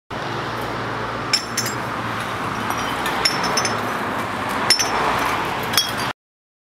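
Steady background hiss with about six short, sharp clinks scattered through it, each with a brief high ring. It cuts off suddenly near the end.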